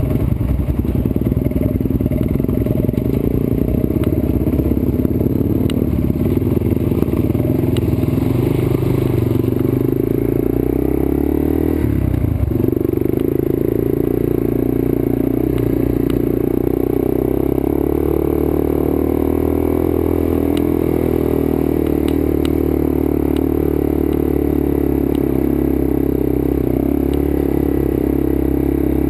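Trail motorbike engine running under way on a rough dirt track, its revs rising and falling, with a brief drop in revs about twelve seconds in. Occasional clicks and clatter from the bike over the bumpy ground.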